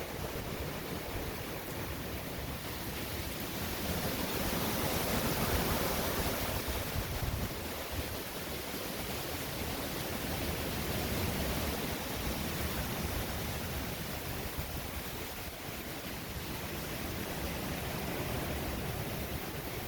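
Hurricane-force wind and heavy rain making a steady rushing noise that swells in gusts, strongest about five seconds in.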